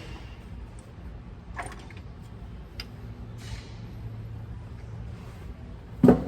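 A steady low mechanical hum with a few light clicks and one loud knock near the end.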